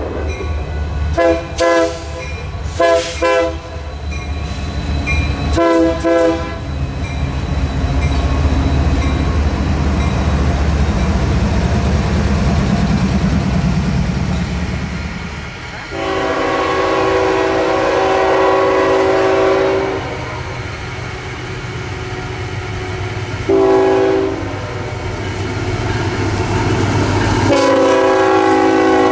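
Diesel freight locomotive with a heavy engine rumble, its air horn sounding a series of blasts: three short ones in the first six seconds, then a long blast, a short one, and another long one near the end.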